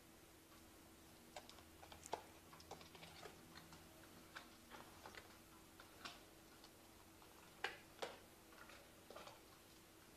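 Tarot cards being handled and shuffled by hand: faint, irregular clicks and taps, with two sharper snaps about three-quarters of the way through.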